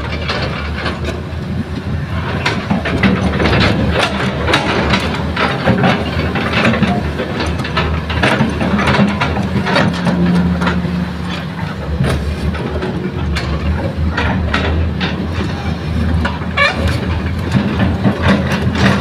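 Diesel engine of a hydraulic excavator running steadily under load, with irregular knocks and clanks from the working machine loading soil.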